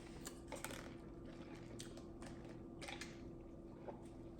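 Close-miked chewing of a spicy McDonald's snack wrap: soft, faint mouth sounds with a few short crunchy crackles scattered through, over a steady low room hum.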